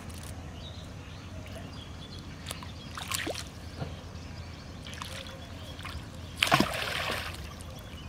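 Water splashing as a thrown hand line's weighted hook lands in the river, the loudest splash coming about six and a half seconds in, with a smaller splash near three seconds, over a steady low rumble.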